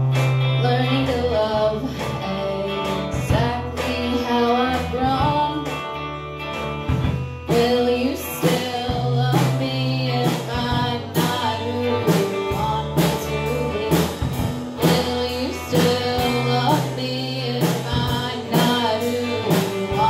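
Rock band playing live: two electric guitars through amplifiers over a drum kit, the drumming getting busier about seven seconds in.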